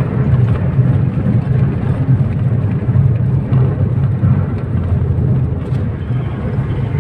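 Toyota Vios at speed on the highway, heard from inside the cabin: a steady, loud low rumble of engine and road noise.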